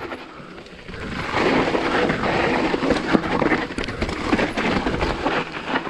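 Mountain bike being ridden over rough dirt trail: a steady rush of tyre noise with many quick knocks and rattles from the bike. The noise gets louder about a second in.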